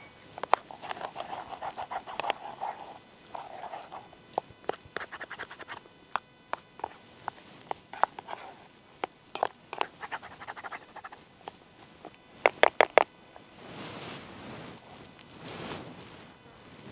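Camp cooking gear being handled by a small stove: a long run of sharp clicks, taps and scrapes, with a quick cluster of four loud sharp strikes a few seconds before the end. Two soft breath-like rushes of noise follow near the end.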